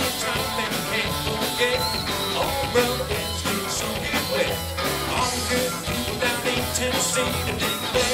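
Live country band playing a song: electric guitars, bass guitar, fiddle and a drum kit keeping a steady beat.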